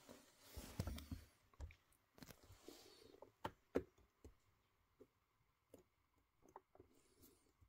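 Faint handling noise from a small scale-model diorama being nudged into place on its base: scattered light clicks and taps with a soft scrape, busiest in the first few seconds and thinning out after.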